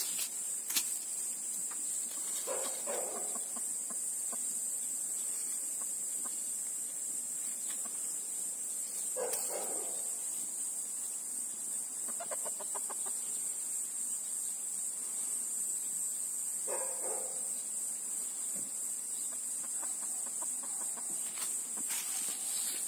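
A chicken clucking in three short calls several seconds apart, over a steady high-pitched hiss.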